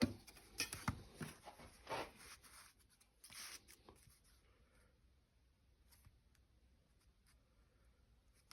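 Drawing tools scratching and tapping as points and lines are marked out for a geometric construction: a few short scratches and clicks in the first few seconds.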